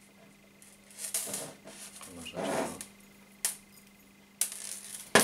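Fishing line rustling in the hands, with three sharp small clicks of metal tackle against the wooden table in the second half, the last and loudest at the very end.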